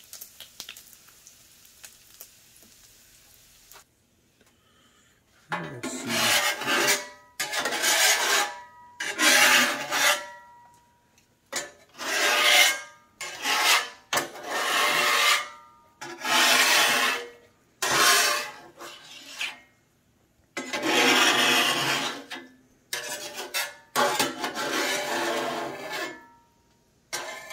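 Metal spatula scraping across the steel top of a Blackstone griddle in about a dozen long strokes, each with a thin squeal, pushing off leftover bacon grease and bits after cooking. Faint grease sizzle for the first few seconds before the scraping starts.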